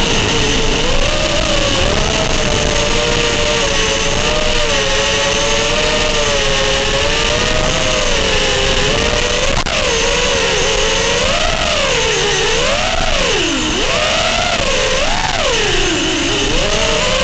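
FPV quadcopter's brushless motors and propellers whining under a steady rush of air. The pitch of several slightly detuned motor tones rises and falls with the throttle, dipping sharply a few times in the second half as the throttle is chopped and punched again.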